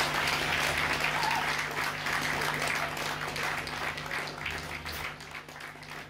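Audience applauding at the end of a rock song, the clapping gradually thinning and growing quieter, with a steady low hum underneath.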